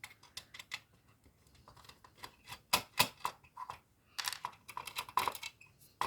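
Irregular small clicks and taps of a screwdriver and screws being worked out of a digital TV receiver's board and case, with a few louder clacks of small hard parts being handled.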